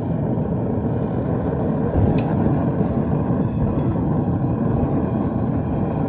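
Gas-fired melting furnace burner running with a steady low rushing noise, with one sharp clink about two seconds in.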